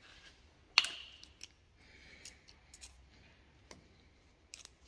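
Small metal clicks and light scraping of a seal pick and small screwdriver working a seal out of its groove in the steel gland of a Case 621 wheel loader's bucket curl cylinder, with one sharp click about a second in.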